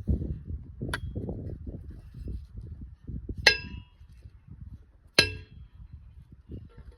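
A post driver striking a steel angle-iron post, three sharp metallic clangs that ring briefly, the last two the loudest, over a steady low rumble of wind on the microphone.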